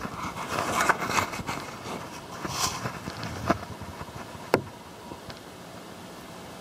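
Close handling noise: irregular rustling with scattered clicks, two sharp clicks about three and a half and four and a half seconds in, then a steady faint hiss.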